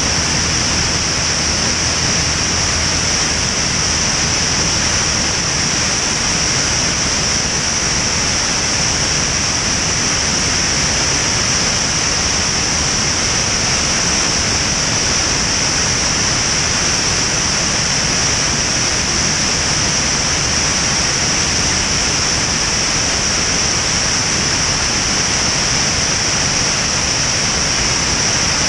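Steady, loud rush of wind over an externally mounted camera in flight, with the low drone of the Van's RV-10's piston engine and propeller beneath it.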